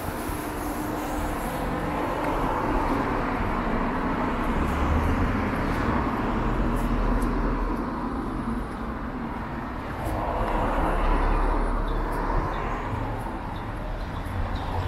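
Continuous vehicle noise, a rumbling hiss that swells and fades twice.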